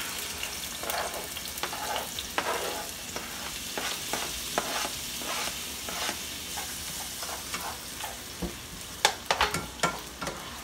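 Chopped tomatoes, bell peppers and onion sizzling in hot oil in a frying pan as they are scraped off a cutting board and stirred, with a steady hiss under frequent scrapes and clicks of the utensil. A quick run of louder knocks comes about nine seconds in.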